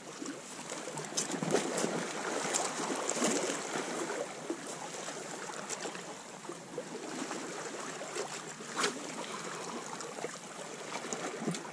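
Sea water washing and lapping against rocks as a steady rushing hiss, with a few faint clicks.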